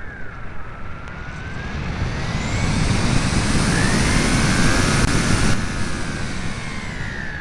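Electric motor and propeller of an AXN Floater RC foam plane heard through its onboard keychain camera, with the whine gliding up and down in pitch under heavy rushing airflow noise. The rush builds over a few seconds, then drops away abruptly about two-thirds of the way through.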